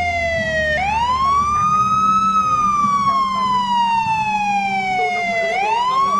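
Police siren sounding a slow wail: the pitch sweeps up quickly and then falls slowly over about three seconds. The upward sweep comes twice, about a second in and again near the end.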